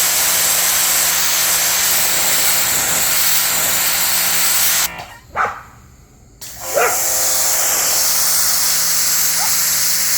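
Dewalt 2400 psi electric pressure washer running with its spray going, a steady hiss over the pump motor's hum; the spray stops for about a second and a half near the middle, with the trigger released, then starts again. A dog barks twice around the pause.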